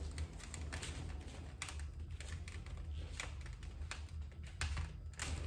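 Wood fire crackling in a cast iron closed-combustion fireplace: irregular sharp pops and snaps from burning kindling and firewood as the newly lit fire takes hold, over a steady low hum.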